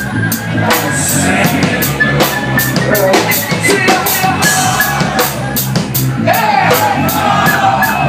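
Live rock band playing: a drum kit keeps a steady beat of drum and cymbal hits under pitched guitar and keyboard lines.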